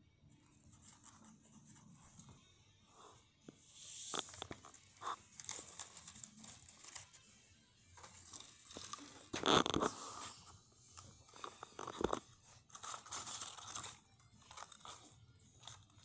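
Irregular crunching and crinkling: food being eaten, with packaging rustled and torn. The loudest crunch comes about nine and a half seconds in.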